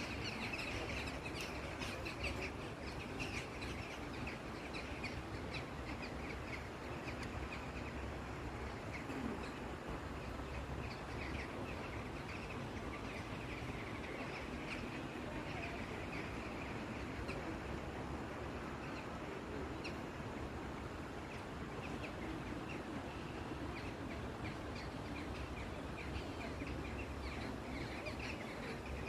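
Many birds chirping in dense, overlapping short calls over a steady low background rumble.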